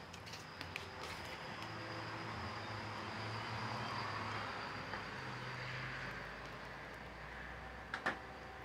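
Steady background hum and hiss that swells toward the middle and eases off again, with two sharp clicks near the end.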